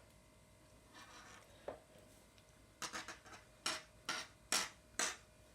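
Pastry brush dabbing egg wash onto a thin pastry wrap: a soft rub and a light tap, then about six short rubbing strokes in quick succession in the second half.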